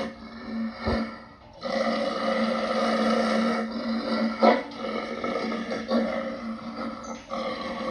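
Low, growling roar-like calls, each held for about two to three seconds with short breaks between them, in imitation of a wolf.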